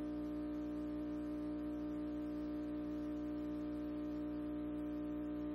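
Steady, unchanging drone inside the cockpit of a TS-11 Iskra jet in flight: one strong low hum with fainter higher tones above it and a light hiss, the jet's engine and airflow heard through the airframe.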